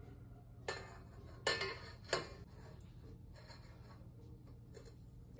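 A metal utensil clinking against a stainless steel stand-mixer bowl three times while scooping cookie dough, each knock ringing briefly; the middle one is the loudest.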